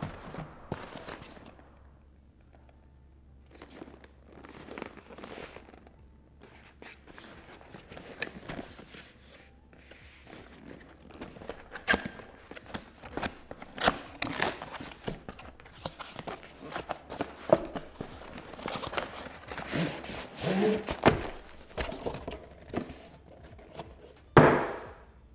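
Cardboard box and packaging being opened and handled: irregular rustling, scraping and knocks, growing busier about halfway through, with a heavier thump near the end.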